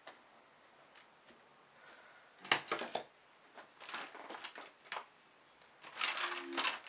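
Clear plastic acetate sheet crackling and rustling in several short bursts as it is pressed flat and its folds are creased by hand.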